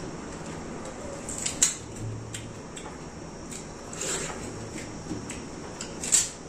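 Watermelon being eaten: wet biting and chewing sounds, with two sharp clacks as slices and rinds are handled, one about a second and a half in and a louder one near the end.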